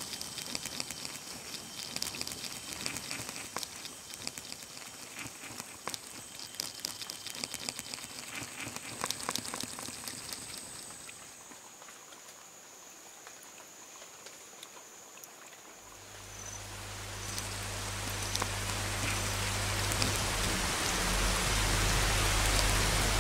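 Recorded rain: scattered drops pattering over a light hiss, easing off, then swelling into steady heavy rain. A low hum comes in about two-thirds of the way through.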